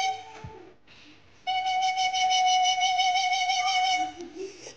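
Parrot giving a long, shrill, steady call with a slight waver, held for nearly three seconds after a short pause.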